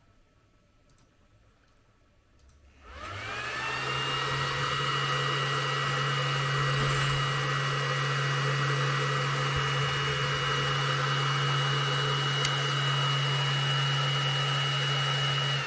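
Near silence for about three seconds, then the xTool D1 Pro laser module's cooling fan starts: a whine rises and settles into a steady whir over a low hum. The fan runs because the laser's positioning dot is switched on, and its pitch falls away right at the end as it winds down.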